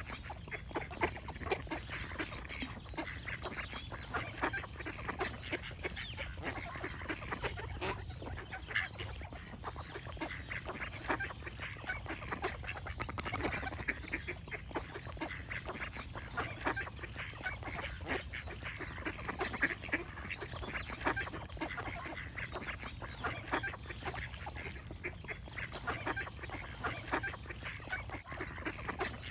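A flock of ducks quacking and calling, many short calls overlapping without a break, over a steady low rumble.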